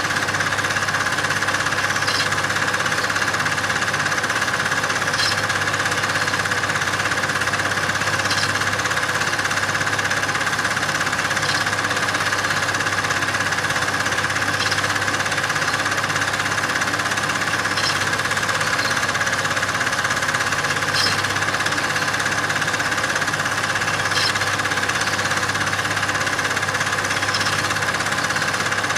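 A steady mechanical running noise, even and unchanging throughout, with a faint high tick about every three seconds.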